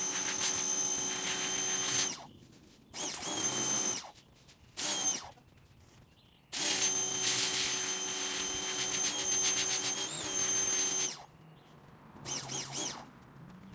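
Pressure washer spraying in five on-off bursts as its trigger is squeezed and released, with the hiss of the water jet over a steady motor whine. The whine sags in pitch each time the spray stops. The longest burst lasts about four and a half seconds, midway through.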